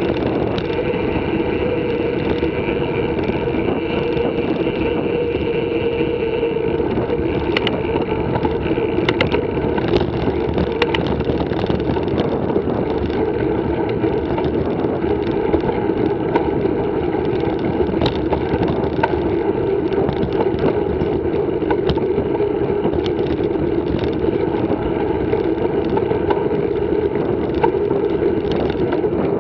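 Steady rushing noise of a mountain bike rolling along a concrete lane, with wind on the camera's microphone and a few sharp clicks and rattles from the bike over bumps.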